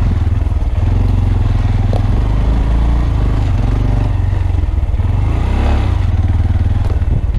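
A 2015 Honda Grom's small single-cylinder engine running steadily as the bike is ridden, its pitch rising and falling a little with the throttle. A heavy low rumble comes with it, picked up by the action camera's built-in microphone.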